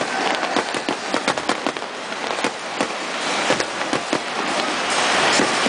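Aerial firework shells bursting overhead, with many sharp pops and crackles in quick succession.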